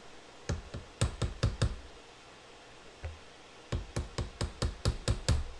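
Quick runs of hard knocks, kitchen baking gear struck against a hard surface: about six in the first couple of seconds, a single one about three seconds in, then about eight more in fast succession near the end.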